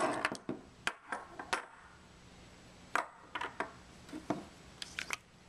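Metal tri-clamp being unfastened and lifted off a sampler: irregular sharp metallic clicks and clinks from the clamp and its fastener, with a quieter pause in the middle.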